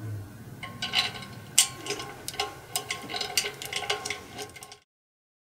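Irregular metallic clicks and clinks as an idler pulley's bolt, washer, step spacer and nut are handled and fitted through an aluminium accessory bracket plate. The clinks stop abruptly shortly before the end.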